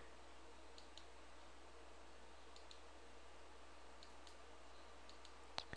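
Near silence with a low steady hum and faint computer mouse clicks, a few soft single and paired clicks spread through, the clearest near the end.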